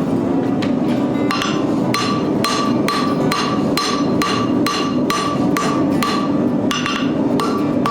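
Hand hammer striking hot steel on an anvil while drawing out and thinning a hinge blank: a steady run of ringing blows, about three a second, after a short pause near the start.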